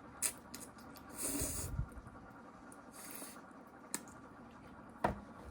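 Someone eating a bowl of udon: a few sharp clicks of utensils against the bowl, the loudest near the end, and two short hissy slurps of noodles.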